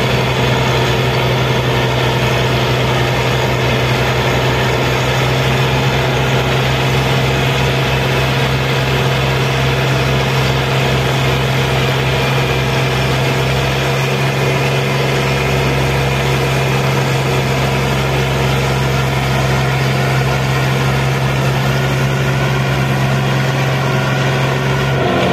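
Tractor diesel engine running steadily under load while pulling a heavily loaded trolley: a loud, even drone whose pitch holds constant throughout.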